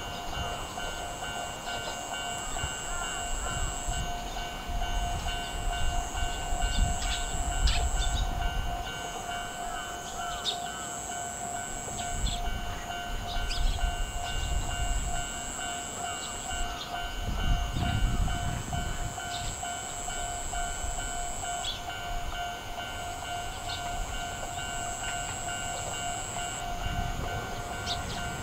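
Japanese level-crossing alarm ringing with a fast, even ding, over low rumbles that swell and fade several times.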